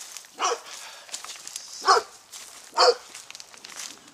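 A pit bull barking, three short sharp barks about a second apart, the second and third the loudest.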